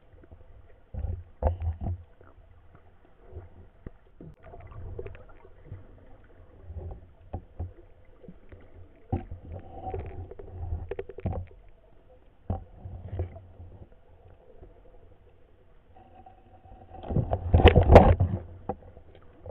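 Underwater sound picked up by a submerged camera: scattered muffled knocks and clicks from the spearfisher's movements and speargun, with a louder rushing burst near the end.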